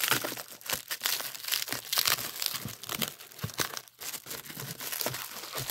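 Bubble wrap crinkling and crackling as a wrapped glass bottle is handled and turned over, in irregular short bursts with a brief lull about four seconds in.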